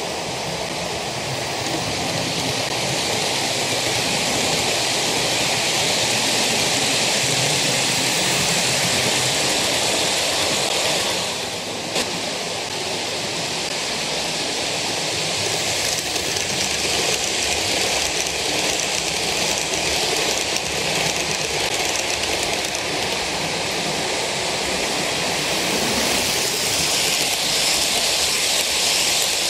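OO gauge model passenger train running on the track close by, a steady rattling rush of its wheels on the rails. The level dips briefly and there is a single click about twelve seconds in.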